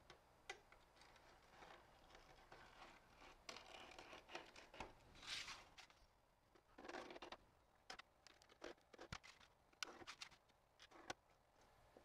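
Faint scratching of a steel scribe drawn along the edges of a sheet-metal blank to mark layout lines, broken by light clicks and taps as the tool and sheet are shifted between strokes.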